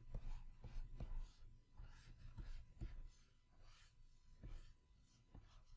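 Faint room tone with a low hum and scattered soft clicks, spaced irregularly.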